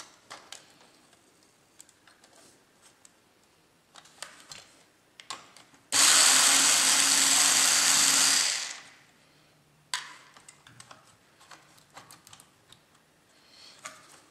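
Cordless electric screwdriver running to back out a screw from a laptop's motherboard: a steady whir that starts suddenly about six seconds in, lasts about two and a half seconds, and winds down. Light clicks and taps of hands handling the laptop parts before and after.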